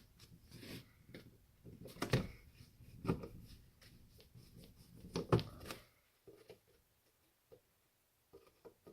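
A few scattered knocks and clicks of tools and parts being handled while an electronic device is taken apart at a workbench, the loudest about five seconds in, then a quiet stretch.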